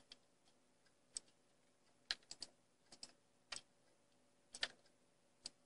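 Faint, scattered clicks of a computer mouse and keyboard, about a dozen, some in quick pairs, over a faint steady hum.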